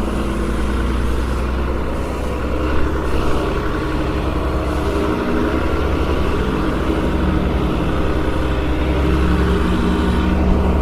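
Tow truck engine running steadily, a deep rumble with slight shifts in pitch, with two brief knocks about three seconds in.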